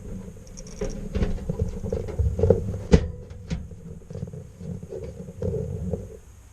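Irregular knocks, clicks and scraping of hands working computer hardware, installing a PC power supply, with one sharp knock about three seconds in.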